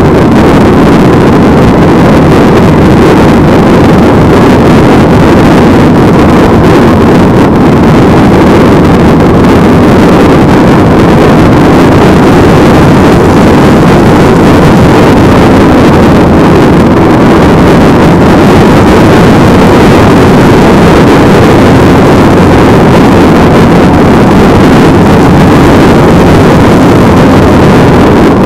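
Steady wind rush on the microphone mixed with motorcycle engine and road noise while riding at road speed, loud and clipped, with no let-up.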